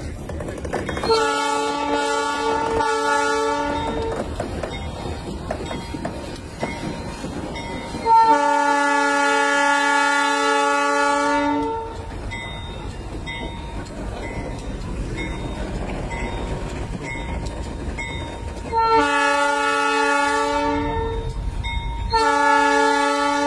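Diesel locomotive's multi-chime air horn sounding a steady chord: three short blasts about a second in, one long blast of about three and a half seconds mid-way, then two more blasts near the end. Between blasts the slow-moving locomotive gives a low rumble.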